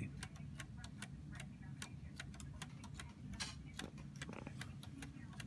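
Spring-wound wooden gear clock movements ticking, a dry wooden clicking of about four ticks a second.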